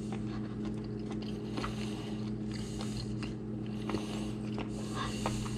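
A person chewing a piece of grilled octopus close to the microphone: soft wet chewing and small clicks on rubbery meat that he then calls really chewy. A steady electrical hum runs underneath.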